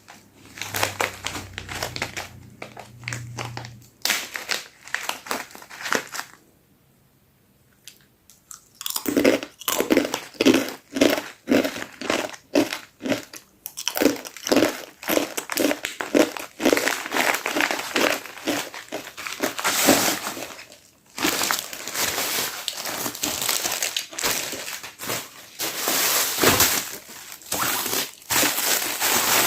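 Plastic parcel packaging crinkling and crackling as it is handled and unwrapped by hand, in irregular bursts, with a short near-quiet pause about seven seconds in.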